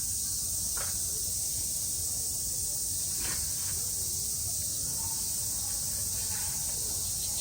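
Steady high-pitched insect chorus, a continuous summer drone, with a few faint clicks over a low rumble.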